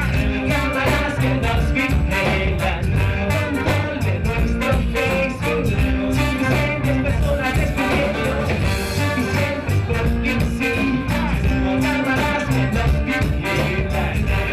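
A live band playing upbeat music with Latin American rhythms and steady, busy percussion, with a voice singing over it.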